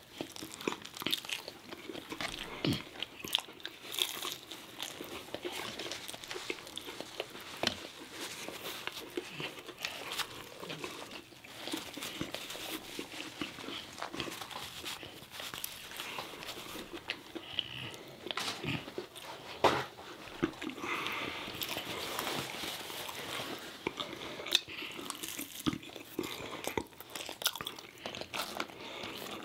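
Biting and chewing of McDonald's food (a McChicken sandwich, chicken nuggets and fries), with irregular crunches throughout. The sharpest crunch comes about 20 seconds in.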